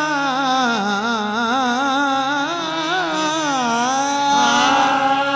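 Qawwali: a male voice singing a long wordless, melismatic line that winds up and down in pitch, over steady held harmonium notes.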